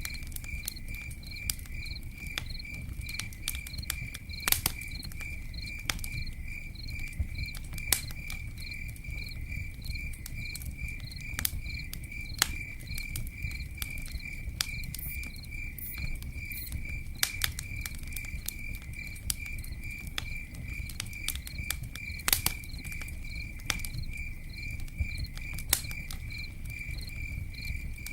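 Campfire crackling, with sharp pops every few seconds, over a low steady rumble. A cricket chirps in a steady pulsing rhythm throughout.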